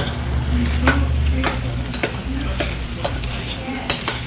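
Spicy pork bulgogi sizzling in a stone pot while metal chopsticks stir it. The chopsticks click and scrape against the stone about every half second.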